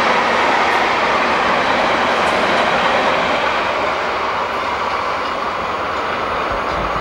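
Freight train of covered wagons running past at close range, a steady noise of wheels on rail that eases a little about halfway through as the train draws away.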